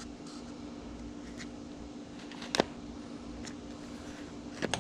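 Sharp clicks of parts and hardware being handled while a motorcycle front fender is bolted on: one about halfway through and a quick pair near the end, over a steady low hum.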